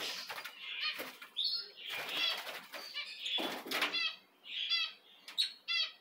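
Red-rumped parrots chirping and twittering in quick, repeated short phrases, with bursts of wing flapping as birds fly about, the loudest a little past the middle.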